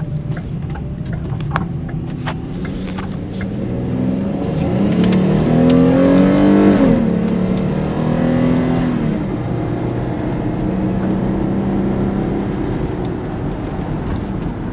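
Ford Edge SUV pulling away and accelerating on a test drive: the engine note climbs for a few seconds, drops suddenly as the automatic gearbox shifts up, then climbs again briefly, over steady road and tyre rumble. It runs smoothly, with no knocking.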